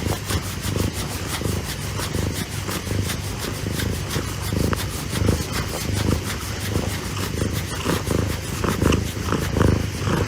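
Domestic cat purring close to the microphone: a steady low rumble that swells rhythmically with each breath, with fast fine clicking over it.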